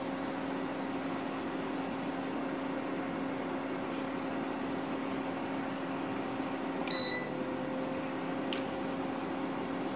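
Electric cooktop humming steadily under a pan. About seven seconds in there is a single short beep, after which the hum shifts slightly in pitch, as when the cooker's power setting is changed.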